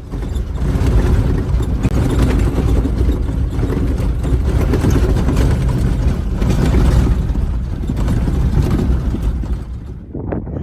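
Steady, loud rumble of a moving vehicle.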